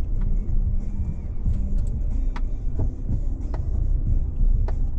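Off-road truck driving slowly along a rough dirt forest trail: steady low engine and tyre rumble, with a handful of sharp clicks and knocks scattered through it.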